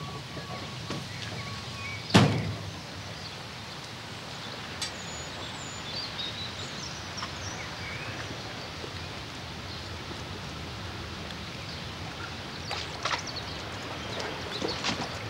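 A car door slammed shut once, a single loud thump about two seconds in, followed by steady open-air ambience with a few faint high chirps and some light clicks near the end.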